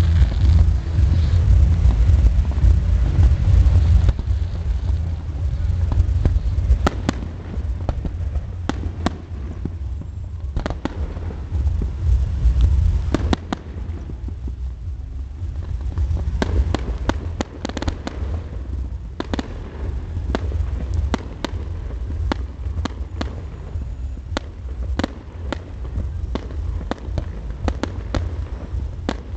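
Fireworks display: a run of sharp bangs and crackles over a low rumble, loudest in the first few seconds.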